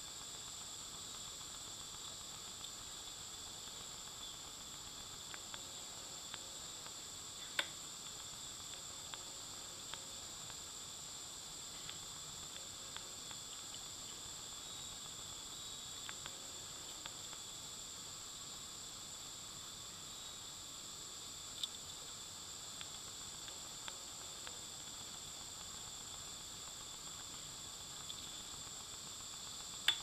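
Faint steady high-pitched hiss with a scattered handful of small clicks as a Victorinox Swiss Army pocket knife is handled and a string is tied around it. The sharpest clicks come about a quarter of the way in and again about two-thirds of the way through.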